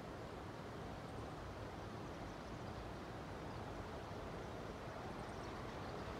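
Faint steady outdoor ambience: a low rumble and soft hiss of wind and distant background noise, with no train passing.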